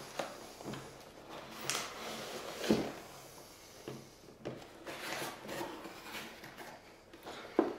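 A box being opened and its contents handled: scattered rustling and scraping with several short knocks, the sharpest about a third of the way in and just before the end.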